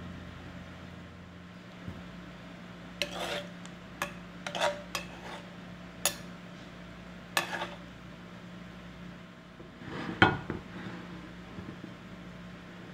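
Metal utensils clinking and scraping against a china plate and a frying pan, a scattering of sharp clicks with the loudest about ten seconds in, over a faint steady hum.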